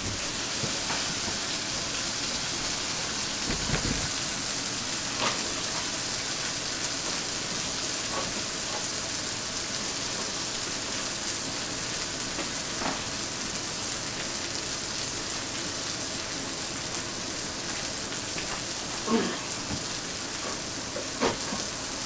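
Sausage patties frying in a pan, sizzling steadily.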